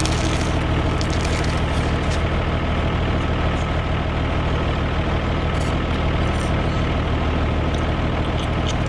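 A steady tractor engine idling sound, an even low hum that holds without change, with a few faint clicks from the plastic toy tractor being handled.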